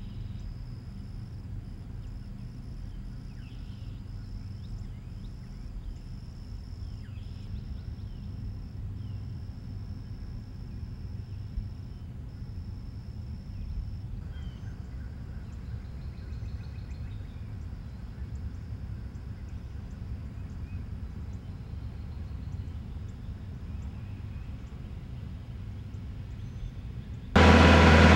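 Faint outdoor ambience: a low rumble with a steady high insect drone and a few faint bird chirps. Near the end it cuts suddenly to tractor engines running loudly and steadily.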